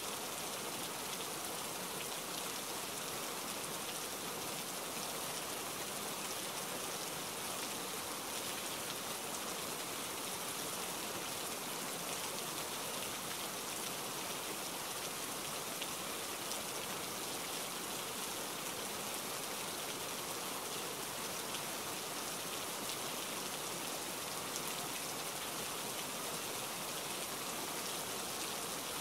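Rain falling steadily: an even hiss that holds the same level throughout.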